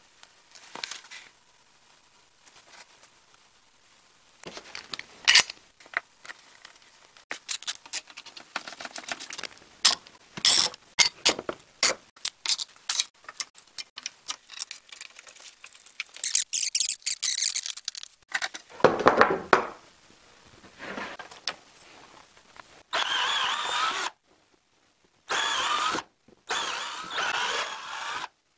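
Trigger-style bar clamps being set and tightened on a glued-up wood blank, with many rapid ratchet clicks and knocks. Near the end, a power drill bores holes into the hardwood in three short runs.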